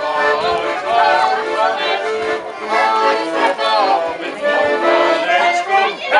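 Accordion playing a tune in long held chords, with a group of voices singing along.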